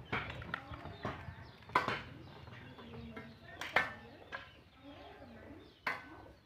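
Rural yard ambience: birds and chickens calling. Three sharp knocks stand out, about two seconds apart.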